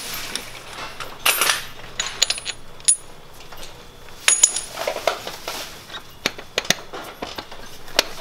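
Scattered metallic clinks, taps and short rattles of tools and small metal parts as a crankshaft damper pulley is unbolted and pulled off, some clinks ringing briefly.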